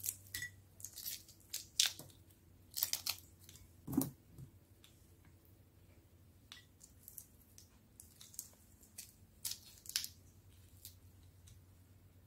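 Cooked prawns being peeled by hand: quiet, irregular crackles and snaps of shell tearing away from the flesh, in clusters with short pauses between.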